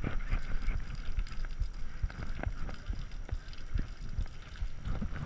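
Low rumble with scattered irregular clicks and knocks, picked up by an action camera mounted on a wet mountain bike as the bike is handled and knocks against a metal rack.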